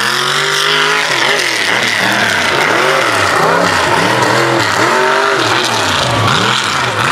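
Mega mud truck engine held at high revs, then blipped up and down over and over, about once a second, its pitch rising and falling each time.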